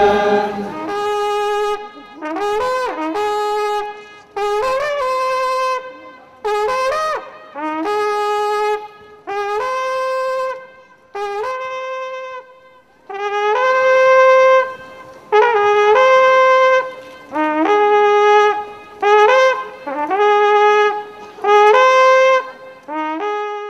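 A long wooden horn blown in a series of held notes separated by short gaps. It moves mostly between two pitches, and many notes slide up into pitch at their start.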